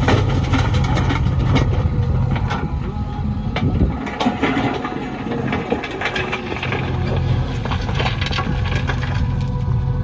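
Diesel engine of a JCB backhoe loader running under load during soil loading, with scattered knocks and clatter. About four seconds in the low engine drone eases for a couple of seconds while the clattering grows, then the drone returns.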